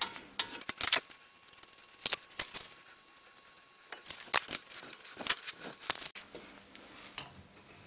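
A wheel lug nut being spun onto a stud by hand and snugged down to hold a worn brake disc against the hub: scattered light metallic clicks and taps, with a few sharper ones.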